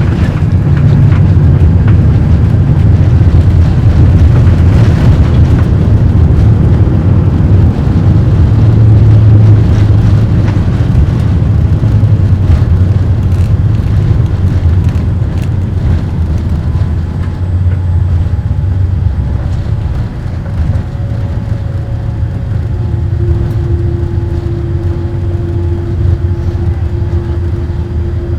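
Cabin noise of a Boeing 787-8 on its landing rollout: a loud, deep rumble of the engines and the wheels on the runway that eases off slowly as the aircraft slows. Near the end a steady hum comes in.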